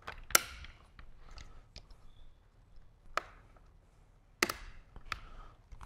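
Plastic wiring-harness connectors being pushed home on a motorcycle fairing, giving a few sharp clicks spread over several seconds, the first the loudest, with light handling of wires between. The click is the sign that each connector has latched fully.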